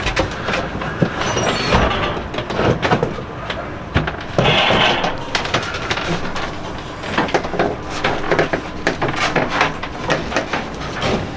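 A boxy appliance being shoved and slid into a tight cabinet opening: irregular scraping with many knocks and clunks against the woodwork, and a louder stretch of scraping about four and a half seconds in.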